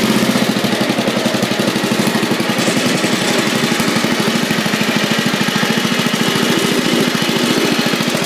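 Bolens garden tractor's small engine running steadily with an even, rapid pulse.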